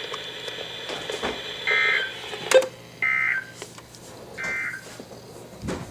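Emergency Alert System end-of-message data tones: three short warbling bursts of the SAME digital code, about a second apart, over weather-radio static. They signal the end of the severe thunderstorm warning just read.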